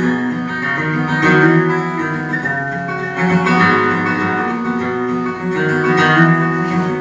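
Steel-string acoustic guitar playing chords, the instrumental introduction to a song before the singing starts.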